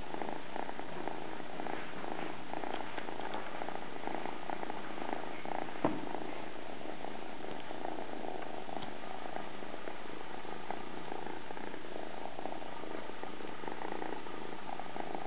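Kitten purring steadily, a close, even rumble of fast pulses. A single brief tap sounds about six seconds in.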